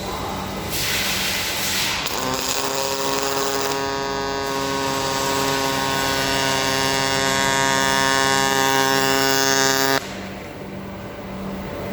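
MAG welding arc on 3 mm stainless steel, a steady buzz over a hiss, running for about eight seconds and stopping abruptly near the end. A brief hiss comes just before the arc starts.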